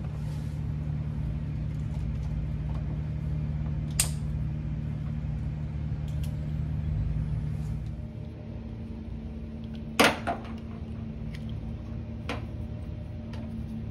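Timing light's alligator clips being handled and clamped onto a car battery's terminals: a few sharp clicks and clacks, the loudest about ten seconds in, over a steady low hum.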